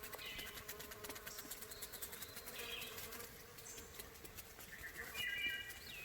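Flies buzzing around, a steady insect drone, with a few short high chirps over it, the loudest about five seconds in.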